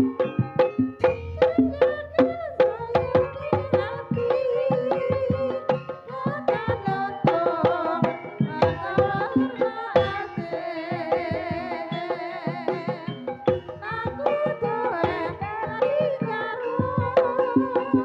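Live Javanese gamelan music of the kind played for barongan and ebeg dance: rapid hand-drum (kendang) strokes driving the rhythm under a wavering pitched melody.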